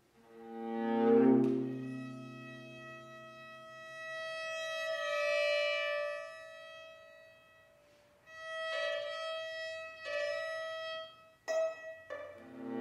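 String quartet of two violins, viola and cello playing: a chord swells in and dies away, a long high note is held, then a run of short separate chords near the end.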